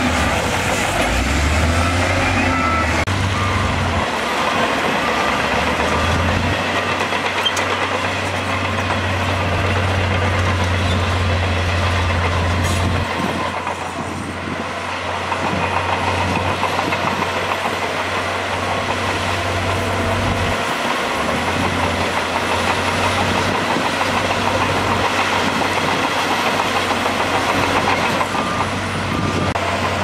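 Diesel engines of heavy earthmoving machines running: an SDLG wheel loader dumping dirt, then a SHANTUI crawler bulldozer pushing dirt and rock, with a steady low engine drone. The sound changes about halfway through.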